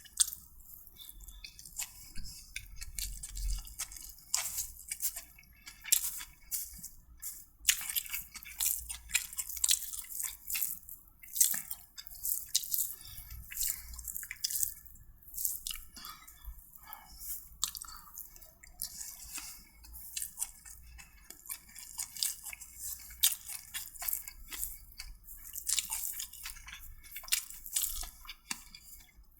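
A person chewing food close to the microphone, with many short wet, crunchy clicks of mouth and teeth throughout.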